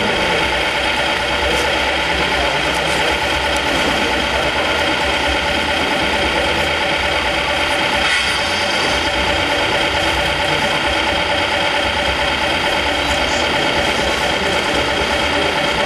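Radio-controlled model truck with a loader crane running steadily: an even, engine-like idle with steady whining tones over it.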